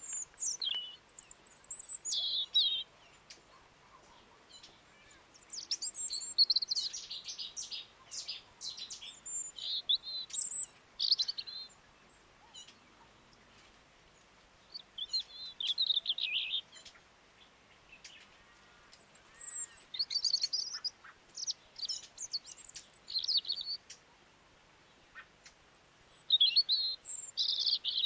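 A songbird singing: quick, high twittering phrases in about five spells of song, each a second or a few seconds long, separated by short pauses.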